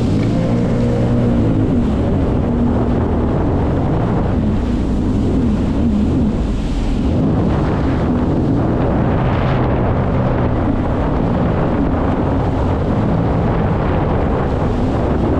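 Jet ski engine running steadily while under way, with wind buffeting the microphone.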